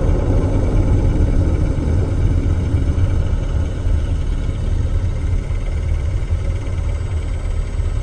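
Steady low rumble of a car driving at highway speed, engine and road noise heard from inside the cabin by a dashcam.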